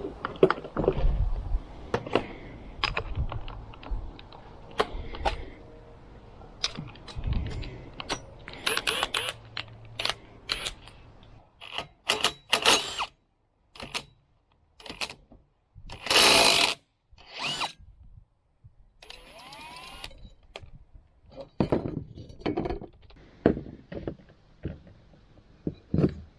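Tools working on a push lawn mower being stripped for a new deck: irregular clanks, knocks and clicks of metal parts and hand tools, with several short noisy bursts of a second or less, the loudest near the middle.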